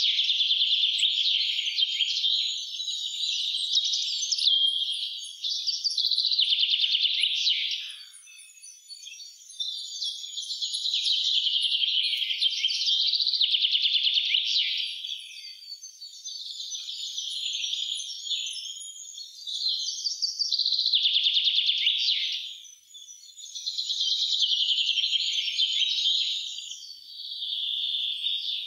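Songbirds singing in spring: loud, rapid song phrases of two to three seconds each, repeated one after another with short pauses between them, and fainter high-pitched notes from another bird above.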